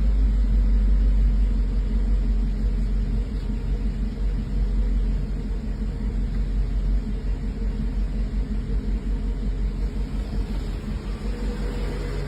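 Mercedes 380SL's 3.8-litre V8 idling steadily just after being started, gradually getting a little quieter as the idle settles. The engine is running normally again after a replacement engine control unit cured its rough idle.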